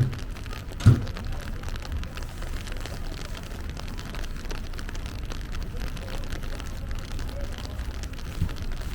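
Steady rain: an even hiss and a dense patter of drops, with a few dull low thumps, one at the start, one about a second in and one near the end.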